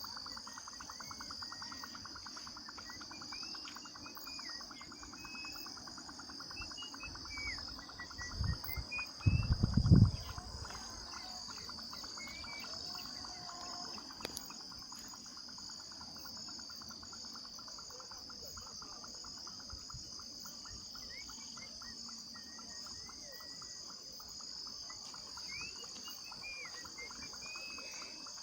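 Late-afternoon rural chorus: a steady high-pitched shrill of insects, a fast pulsing trill lower down, and scattered short bird chirps. About eight seconds in, a few low rumbling thuds rise briefly, the loudest sound, and are gone by about ten seconds.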